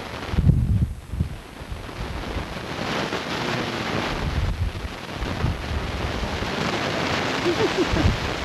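Wind buffeting a camcorder's microphone on an open ski chairlift: a steady rushing noise with low, gusty rumbles, heaviest about half a second in and again near the end.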